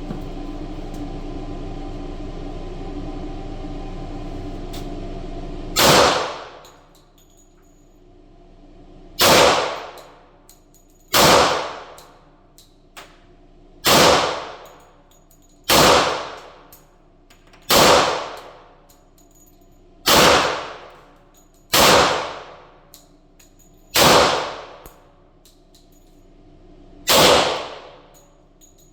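A steady hum for about six seconds, then ten shots from a Glock 20 10mm pistol firing 180-grain handloads, slow and evenly paced about two seconds apart, each shot ringing out for about a second.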